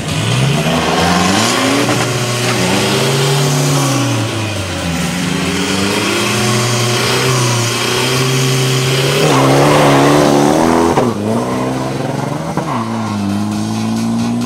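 Diesel 4x4 drag truck engine revving up and down repeatedly, the pitch rising and falling several times, with a louder, rougher stretch about nine to eleven seconds in.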